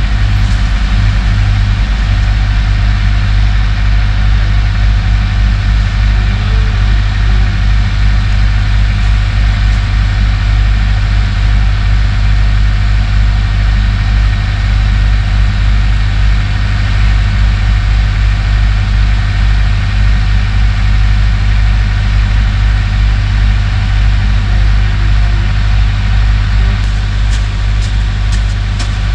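An engine idling steadily with a deep, even drone.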